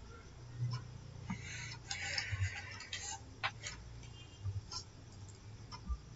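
Faint scattered clicks and ticks over a low steady hum, with a short hissing rustle about two seconds in.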